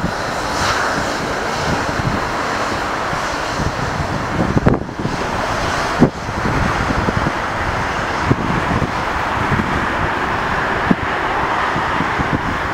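Boeing 757 jet engines running steadily as the airliner rolls along the runway, heard from a distance with wind buffeting the microphone. There are a couple of brief knocks about five and six seconds in.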